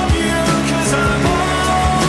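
Background music: a song with a steady drum beat and a held, gliding melody line over sustained chords.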